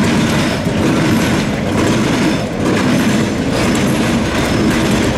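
Two old diesel switcher locomotives pass close at low speed with their engines running, followed by a string of autorack freight cars rolling by, their wheels clacking on the rails.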